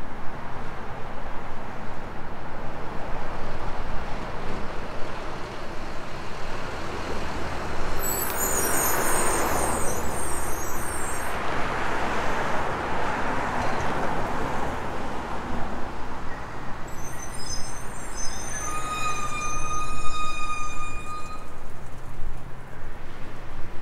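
City street traffic: engines running and vehicles passing, swelling as one goes by about ten seconds in. Vehicle brakes squeal high-pitched twice, about eight seconds in and again for several seconds from about seventeen seconds.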